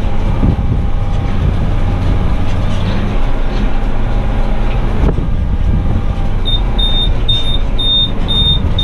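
Renault Ares tractor engine running, heard inside the cab while it pulls a round baler; the low engine hum eases about five seconds in. From about two-thirds of the way in, a high electronic beep repeats about twice a second.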